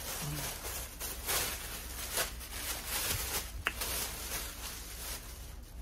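Thin plastic carrier bag rustling and crinkling as it is handled and opened, in irregular swishes and crackles.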